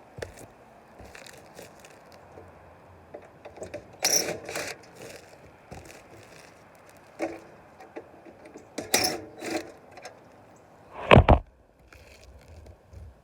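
Aerosol spray paint can in use: rattling mechanical clicks with short hissing bursts about 4 and 9 seconds in, and a loud thump about 11 seconds in.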